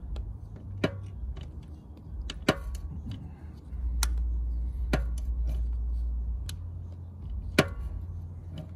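Click-type torque wrench on an oil drain bolt giving about six sharp single clicks, irregularly spaced a second or so apart, as it reaches its set torque of 20 foot-pounds.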